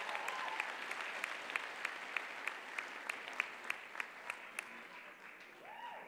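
Audience applauding, the applause fading away, with one clapper close by striking sharp, steady claps about three times a second that stop about four and a half seconds in. A short voice call rises and falls near the end.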